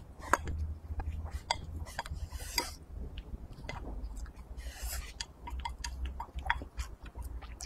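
Close-up eating sounds: chewing and small mouth noises as a person eats a bowl of rice and braised food, with wooden chopsticks clicking against a ceramic bowl and two short scrapes about two and a half and five seconds in.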